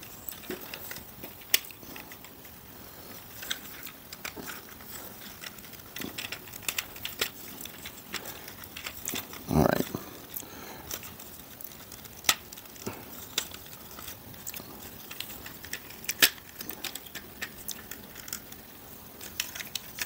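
Hard plastic parts of a large Transformers action figure clicking and tapping at irregular times as they are worked and pushed into place, with one short low bump about halfway through.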